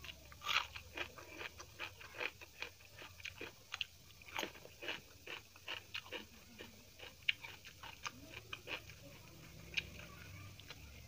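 Food being chewed and crunched, a run of irregular crisp clicks about two or three a second.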